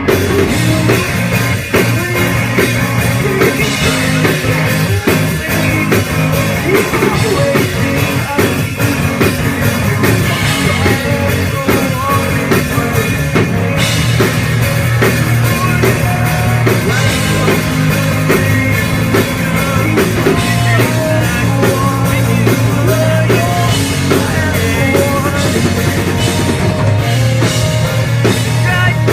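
Loud rock music from a band, with drum kit and guitar.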